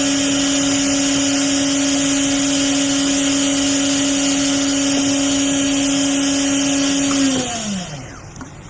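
Hot air rework gun blowing steadily, with a constant motor hum over the rush of air, melting solder balls onto a chip through a reballing stencil. About seven seconds in, the hum slides down in pitch and the air fades as the blower winds down.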